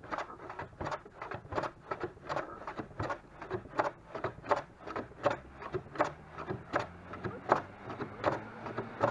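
Metal hand plane shaving the edges of a stack of plywood pieces, pushed back and forth in quick, even strokes, about three sharp shaving sounds a second.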